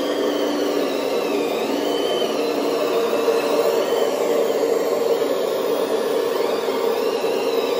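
RC Liebherr R 970 SME excavator model's sound module playing a diesel engine running steadily. Over it, a motor whine rises and falls in pitch as the upperstructure swings round.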